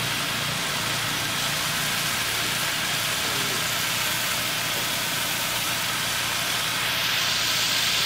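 Steady hissing roar of a wok of oil frying over its burner.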